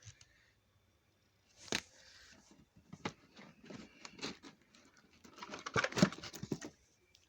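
Packaging being handled at close range: a run of small crinkles, clicks and taps from nail-strip packets and wrapping being sorted. It gets busiest about six seconds in.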